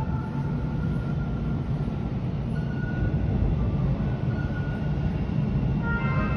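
TTC Bombardier T1 subway train approaching along the platform: a steady low rumble that grows a little louder as it nears, with thin high whining tones above it that gather into a brighter cluster near the end.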